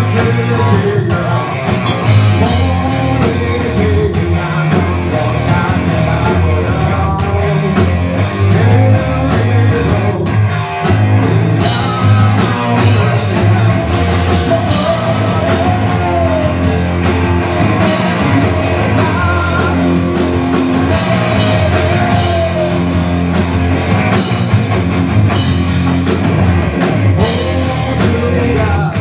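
Live rock band playing loud through a club PA: electric guitars, bass guitar and drum kit, with harmonica cupped to the vocal microphone near the start, playing gliding held notes.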